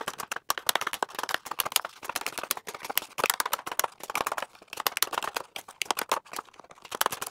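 Handheld single-hole punch snapping through construction paper many times in quick, irregular succession.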